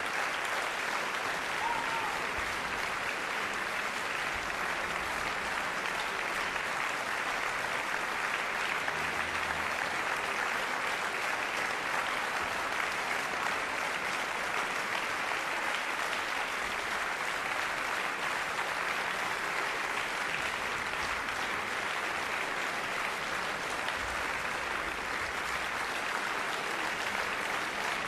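A concert hall audience applauding steadily after an orchestral performance.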